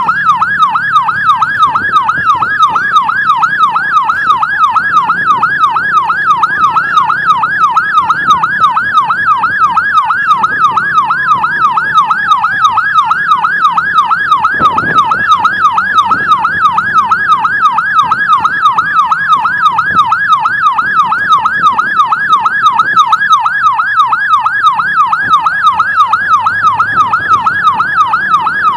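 A police escort siren on a fast, continuous yelp, sweeping rapidly up and down in pitch, standing in for the ambulance's own broken siren. A second siren tone slides down in pitch about ten seconds in.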